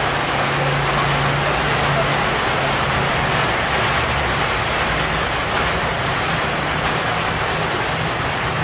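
Steady rain falling on a road and leaves, with a low steady hum underneath that is strongest in the first few seconds.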